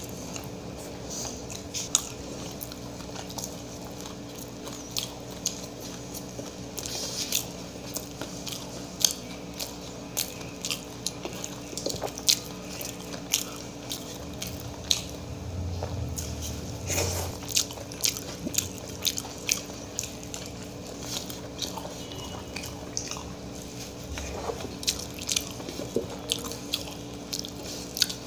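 Close-miked eating: a person chewing rice mixed by hand, with many irregular sharp wet clicks and smacks.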